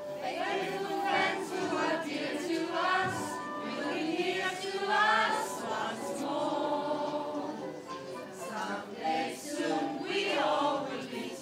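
A group of voices singing a Christmas carol together.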